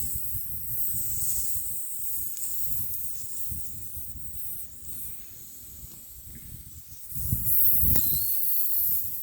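Handling noise and a faint hiss; about seven seconds in, a click is followed by a louder steady hiss of air escaping from the truck tire's puncture as the nail comes out.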